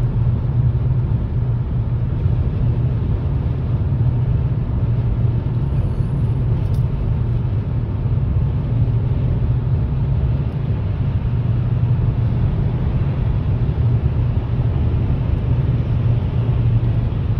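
Steady low rumble of road noise inside a car's cabin, driving at highway speed.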